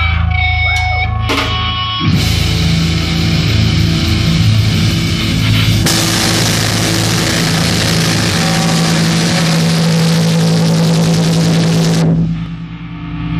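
Live rock band playing loud: electric bass, electric guitar and drum kit with cymbals. The full band comes in about two seconds in after a held low note, and the cymbals and guitars drop away suddenly near the end, leaving a ringing low note.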